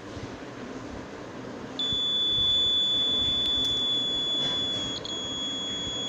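Piezo buzzer of a one-transistor (BC547) wire-break alarm sounding a steady high-pitched tone. It starts about two seconds in, when the thin trip wire is cut and the alarm is triggered, and wavers briefly about five seconds in.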